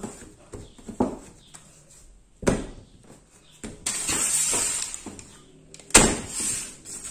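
Hands working soft bread dough on a stainless-steel worktop: light pats and knocks, and a sharp knock about two and a half seconds in. Then a stretch of rustling, a loud thump near the end as the dough is laid onto a metal baking tray lined with crumpled paper, and the paper rustling.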